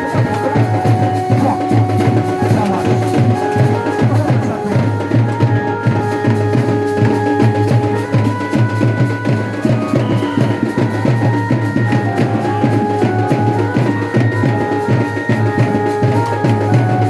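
Music of fast, steady drumming under a melody of long held notes.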